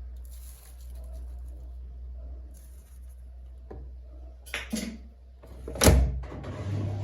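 A kitchen cupboard being handled: faint rustling, then a few light knocks and one louder knock with a low thud about six seconds in, the kind made when a cupboard door shuts.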